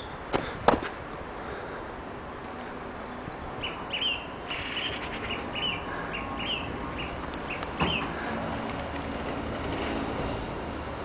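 A football kicked on a garden lawn, with two sharp thuds about half a second in and another near 8 s, and a run of short high chirps in between.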